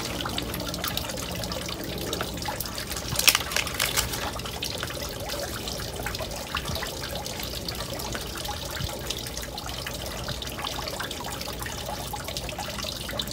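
Small stone garden fountain trickling steadily, water running from its spout into the basin. A few brief rustles about three to four seconds in.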